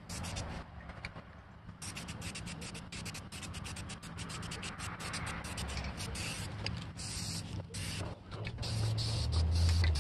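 Aerosol spray paint can hissing in a series of short, uneven bursts as paint is sprayed, over a steady low hum.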